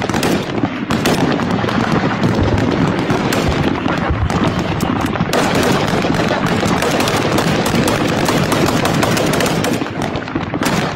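Sustained automatic gunfire: rapid machine-gun bursts overlapping one another without a break, the shots running together into a dense clatter.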